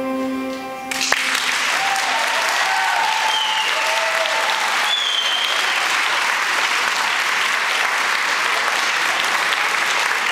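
A held chord of recorded music ends about a second in, and the audience starts applauding: steady clapping with a few cheers over it at first.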